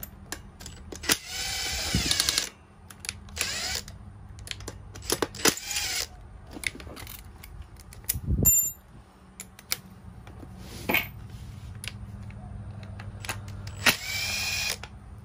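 A small power driver spinning in short bursts of about a second each, rising in pitch, as it backs the screws out of a brush-cutter engine's muffler. Between the bursts, metal parts clink and there is a dull thump about eight seconds in.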